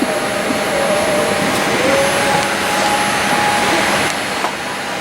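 Steady rushing cabin noise inside a Boeing 787-8 airliner on the ground, with a faint steady hum running through it.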